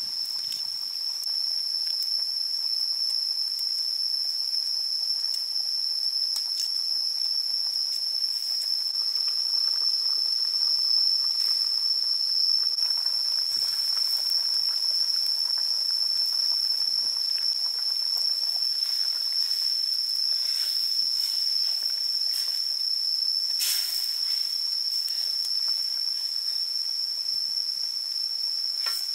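Steady, high-pitched drone of insects in chorus, unbroken throughout, with a few faint clicks; one is sharper about 24 seconds in.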